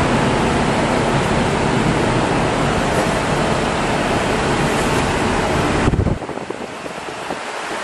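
Stainless steel motorized honey extractor running, a steady loud rushing, rumbling noise of the spinning basket and frames. It drops away sharply about six seconds in, and a few light clicks follow.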